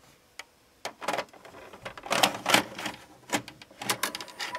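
JVC HR-A37U VHS video recorder taking in a cassette: an irregular run of clicks and clunks from the tape-loading mechanism, starting about a second in.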